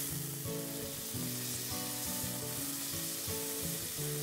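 Bear roast sizzling in hot olive oil in a cast-iron skillet as it is turned with tongs to brown the other side, a steady frying hiss. Soft background music with held notes runs under it.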